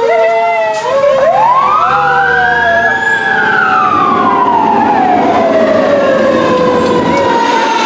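Fire engine's Federal Q mechanical siren winding up about a second in, peaking near three seconds, then slowly coasting down in pitch.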